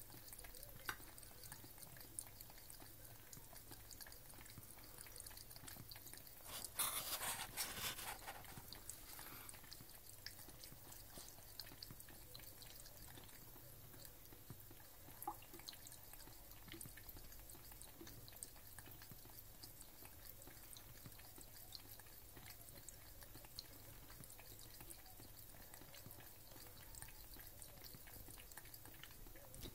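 Faint trickle of a thin stream of water from a kitchen tap while a Bengal cat laps at it, with scattered small clicks and drips. A louder noisy splash-like stretch lasts about a second and a half, some seven seconds in.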